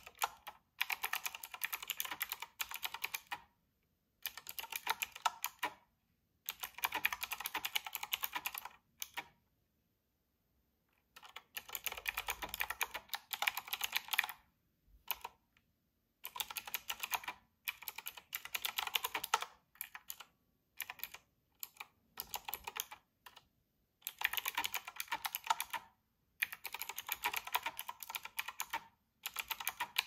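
Fast typing on a typewriter-style mechanical keyboard with round keycaps: dense runs of key clicks a few seconds long, broken by short pauses.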